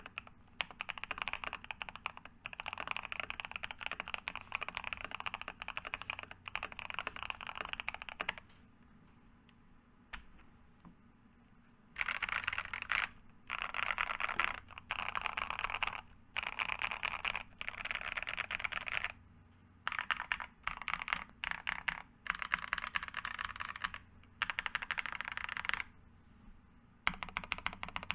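Fast typing on an NK87 Entry Edition mechanical keyboard with L+F Epsilon long-pole switches in its plastic case, a deep thock on each keystroke. The typing comes in runs of a few seconds, with one longer pause about a third of the way in and several shorter breaks.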